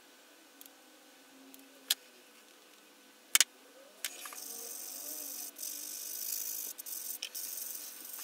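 Sanding stick rubbing over the plastic fuselage of a scale model kit, a steady high hiss with short breaks between strokes starting about four seconds in. Before it, a few sharp clicks, the loudest a double click about three and a half seconds in, as the kit and tools are handled.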